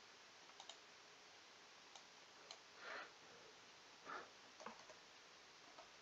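Near silence with a few faint, scattered computer mouse clicks, and two soft, brief hushed sounds about three and four seconds in.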